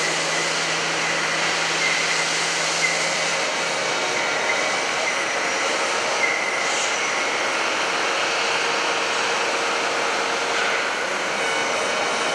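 Droop & Rein D 175 V horizontal boring and milling machine running: a steady mechanical noise with a faint high whine, and a low hum that stops about three and a half seconds in.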